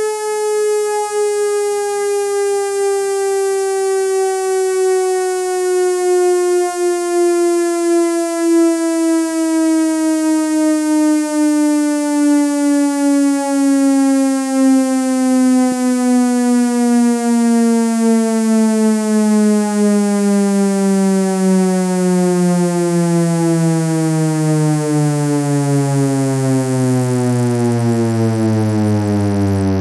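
Synthesized ACA Hurricane siren winding down: one steady tone with many overtones, falling slowly and smoothly in pitch throughout and ending low.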